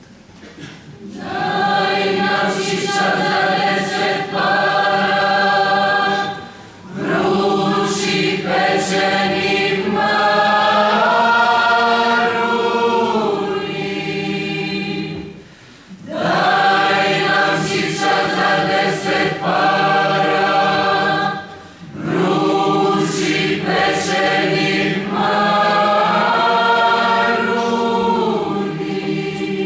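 Mixed choir of women's and men's voices singing without accompaniment, in long phrases separated by brief pauses for breath.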